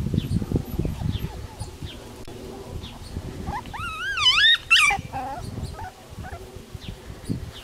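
A dog whining: one wavering, high-pitched whine that rises and falls for about a second and a half, starting about three and a half seconds in. Faint short bird chirps repeat in the background.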